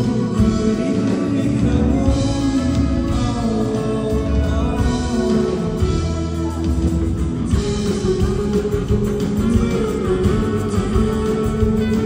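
Live rock band playing, with acoustic and electric guitars, bass and drums, heard from among the audience.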